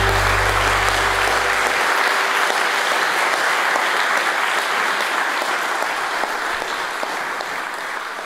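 Guests applauding, a dense steady clapping that slowly dies down toward the end, with background music fading out in the first two seconds.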